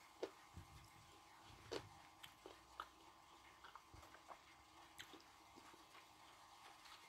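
Faint wet mouth clicks and smacks of someone chewing a piece of blue edible clay that has softened into a creamy paste, with a few louder clicks among them.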